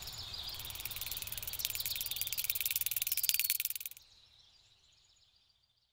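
Nature-ambience sound effect of rapid, high insect chirping over a low rumble. It cuts away about four seconds in, leaving a few faint high chirps that fade out.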